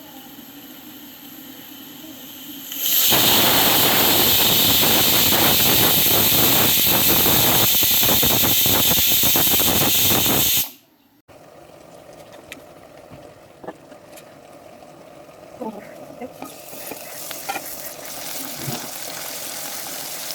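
Food frying in hot oil in a pan: a loud, dense sizzle with crackling that starts about three seconds in and stops abruptly about halfway through. A quieter stretch follows, with a few light clicks from a utensil and a faint sizzle.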